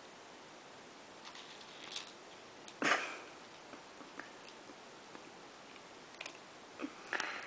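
A cat pawing dry kibble out of its food bowl and eating it: a few short clicks and rustles of kibble against the bowl, the loudest about three seconds in and another cluster near the end.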